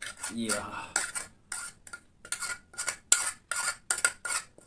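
A metal spoon scrapes egg bhujiya out of a metal cooking pot onto a steel plate. It makes a run of short scrapes, about two a second, each with a faint metallic ring.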